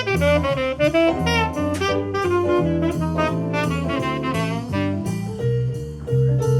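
Jazz band instrumental break: a tenor saxophone plays a fast, busy solo line over walking upright bass, piano and drums. About five seconds in the saxophone line thins out and the piano and bass carry on.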